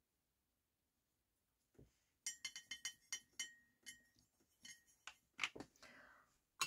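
Faint, quick clinking of a paintbrush against a white ceramic plate and a small plastic watercolour pan as paint is picked up and mixed, starting about two seconds in. A few louder clicks and a short scrape follow near the end as the pan is set back into the plastic palette.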